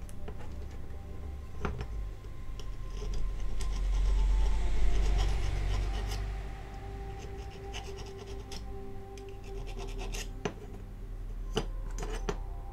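Hand sanding of filler putty on the pillar of a small die-cast metal toy car body: a rasping scratch that swells loudest around the middle, with a few light clicks as the piece is handled.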